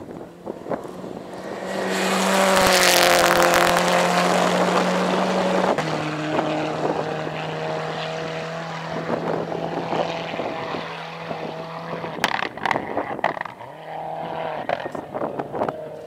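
Rally car engine at full throttle on a gravel stage, loudest as it passes close about three seconds in, then pulling away. The engine note drops in pitch at an upshift about six seconds in, then holds steady. A single sharp crack comes about twelve seconds in, and the sound fades as the car draws off into the distance.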